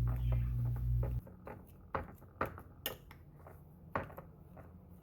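Boiled potatoes being mashed in a bowl: a utensil knocking against the bowl in separate strokes, about two a second. A low steady hum cuts off about a second in.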